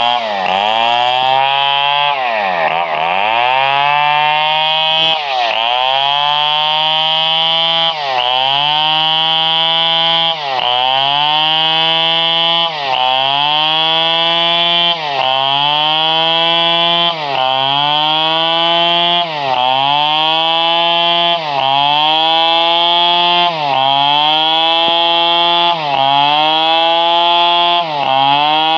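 Stihl 720 two-stroke chainsaw running at high revs. Its pitch drops sharply and climbs back about every two seconds, over and over.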